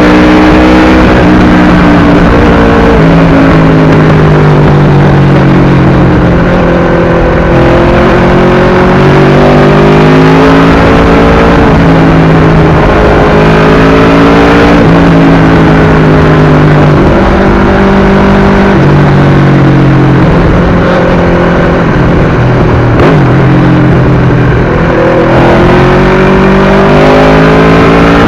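Aprilia RSV4 1000's V4 engine through an SC-Project exhaust, loud under way. Its pitch climbs with revs and drops sharply several times as the gears change.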